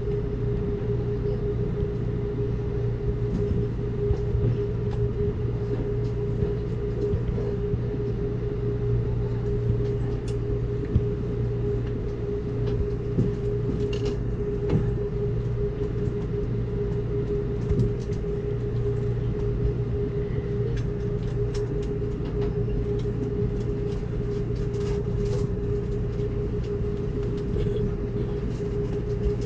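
Amtrak Cascades passenger train running, heard from on board: a steady rumble with a constant hum and scattered light clicks and rattles.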